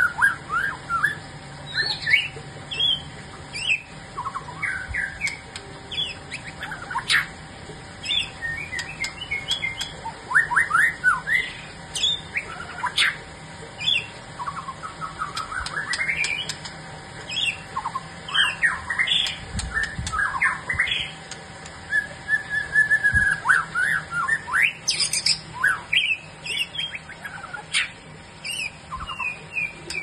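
White-rumped shama singing a long, varied song of quick whistled notes and fast rising and falling sweeps, broken into short phrases with brief gaps.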